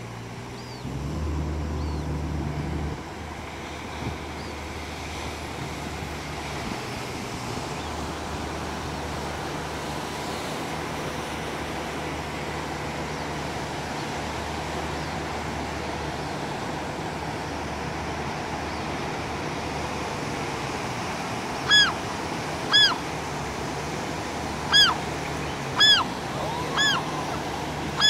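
Steady surf from waves breaking below the cliff. Near the end a gull calls five times, short arched cries about a second apart, louder than the surf.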